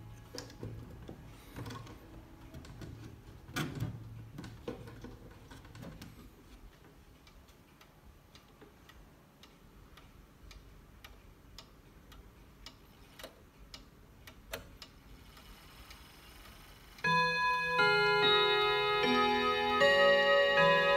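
ODO 62 wall clock ticking steadily. About seventeen seconds in, its hammers start striking the gong rods in a chime melody, many ringing notes overlapping, much louder than the ticking.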